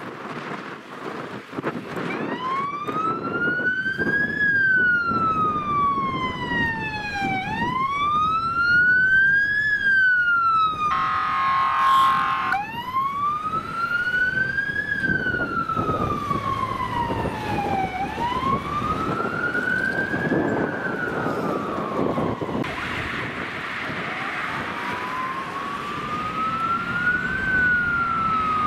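Fire engine siren on a slow wail, rising and falling about every five seconds, with a short blast of the truck's air horn about eleven seconds in.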